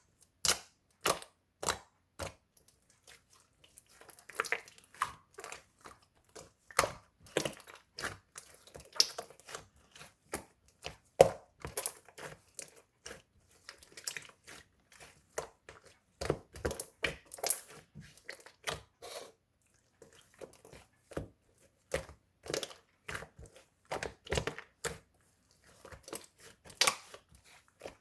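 Hands kneading and pressing clear slime, giving irregular sticky pops and crackling clicks, several a second.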